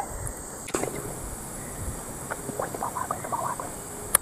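Tropical forest ambience: a steady high-pitched drone of insects with faint rustling in the brush. There is one sharp click about a second in and a louder, very sharp click just before the end.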